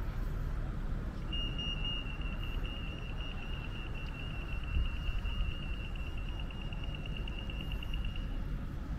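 Rapid, high-pitched electronic beeping that starts about a second in and stops about a second before the end, over a steady low background rumble.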